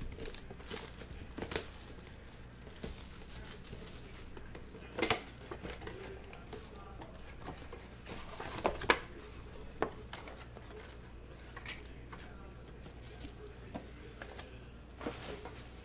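Trading-card box and packs being opened by hand: wrappers crinkling and tearing, with sharp crackles about 1.5, 5, 9 and 15 seconds in.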